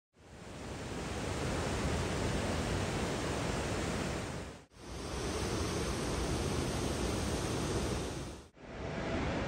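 Steady rush of a fast mountain river pouring over boulders, dropping out briefly twice.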